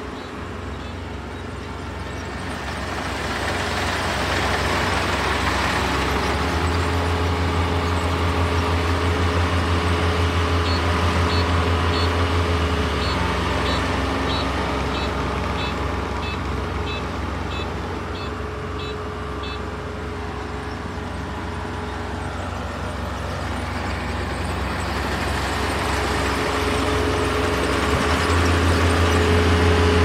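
Kubota DR472 four-row, 72-horsepower combine harvester running steadily, with a low engine hum and a constant mid tone, swelling louder twice. A run of short high beeps sounds for several seconds midway.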